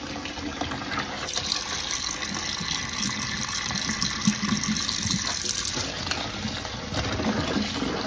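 Cold tap water running into a plastic tub of wild bird seed in a stainless steel sink, a steady splashing stream, while the seed is stirred with a spoon to rinse it.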